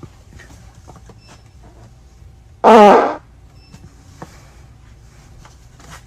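A single loud fart, about half a second long, its pitch wavering.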